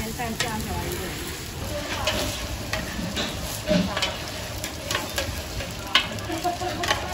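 Food sizzling in a frying pan while a spatula stirs and scrapes it, with a few sharp clinks of metal on the pan.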